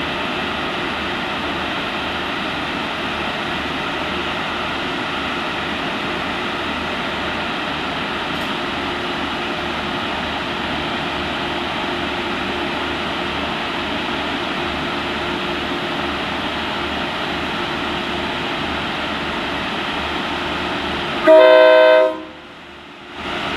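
SRT Sprinter diesel railcar idling at the platform with a steady engine hum. Near the end its horn gives one short, loud blast, and right after that the sound cuts out for about a second.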